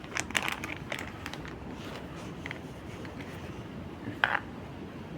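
A geocache container being handled: a few light clicks and rustles in the first second and a half, then one louder click about four seconds in, over a steady low background rumble.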